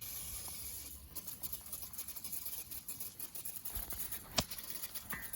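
Aerosol can of Gunk engine degreaser spraying onto an engine: a faint, uneven crackling hiss, the can running nearly empty. A sharp click comes a little over four seconds in.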